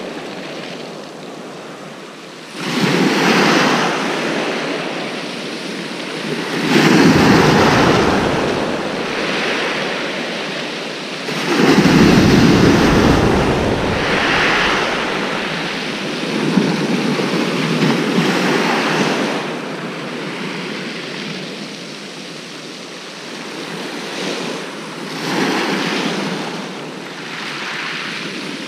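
Waves breaking repeatedly on a shingle beach in a rough sea, each one swelling up and washing back, the loudest about twelve seconds in.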